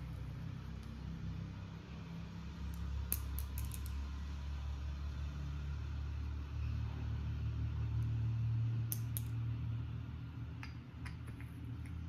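Small pink rabbit washing machine running with a steady low hum, with a few light clicks and ticks over it.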